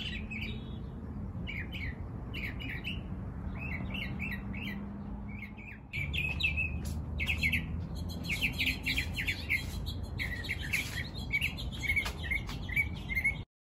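Small birds chirping in quick, overlapping calls, busier and louder from about six seconds in, then cutting off suddenly near the end.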